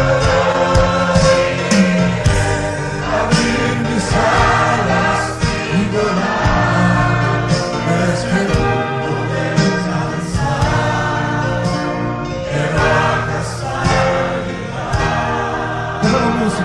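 A choir sings a gospel hymn over instrumental backing with a steady beat.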